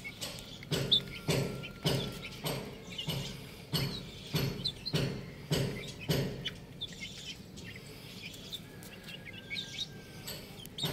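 Young hens pecking at loose soil on a concrete floor: a run of short taps about every half second for the first six seconds, with short high chirps from birds throughout.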